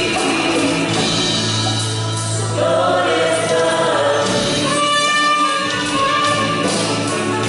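Congregation or choir singing a hymn with instrumental accompaniment.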